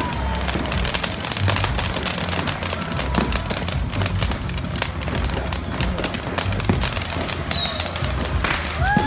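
Fireworks crackling and popping in a dense, irregular stream while a ground fountain firework sprays sparks, with music playing underneath.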